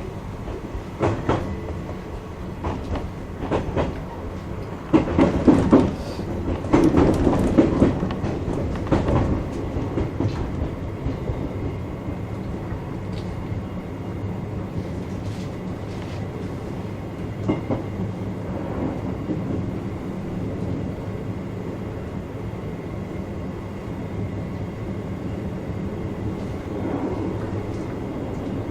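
Electric commuter train running, heard from on board: wheels clacking over rail joints and points in quick irregular clicks, loudest about five to nine seconds in, then settling into a steady running rumble.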